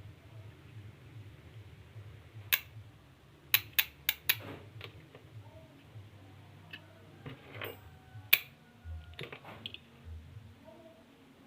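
Scattered sharp clicks and taps, several in quick succession around the middle and one more later, over a faint low background hum.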